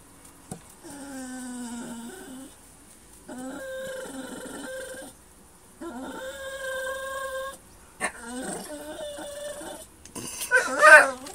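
Dog whining in four long, drawn-out whines, most held steady on one high pitch: eager to get at a cockatoo it wants to play with. A louder, harsher call near the end.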